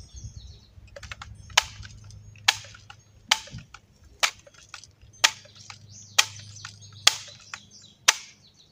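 Barra 1866 lever-action BB rifle being pumped: the lever is worked eight times, about once a second, with a sharp metallic click at each stroke as air is built up for the next shot. A low steady hum runs underneath.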